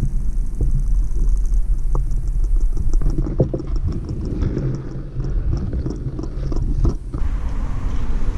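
Muffled low rumble of water heard through an underwater camera, with a fast, even ticking from about three seconds in that stops about seven seconds in.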